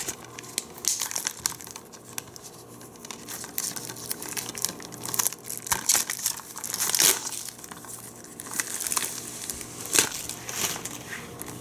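Clear plastic shrink-wrap being picked at, torn and peeled off a Blu-ray case: a run of irregular crinkles and crackles, loudest about seven and ten seconds in.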